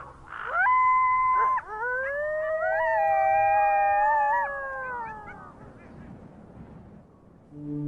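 Wild canids howling: one long, level howl, then two or more voices overlapping in long howls that slide downward and fade out about five seconds in.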